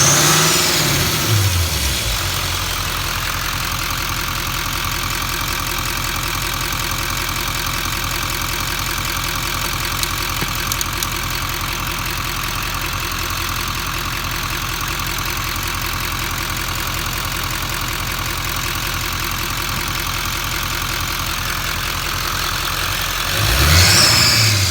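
Duramax LML 6.6-litre V8 turbodiesel idling steadily, blipped up and back down at the start and again near the end. A high whistle rises and falls with each rev, which the owner takes for an exhaust leak after an EGR delete and intake bridge pipe install.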